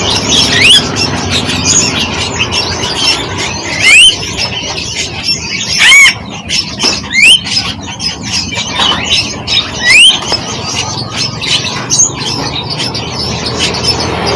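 Songbirds calling: loud rising whistles recur every couple of seconds over a busy background of quick chirps and squawks.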